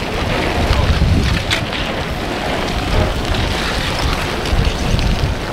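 Wind rumbling on the microphone, with a few faint sharp clicks from the cracking crust of a slowly advancing lava flow. The clearest click comes about a second and a half in.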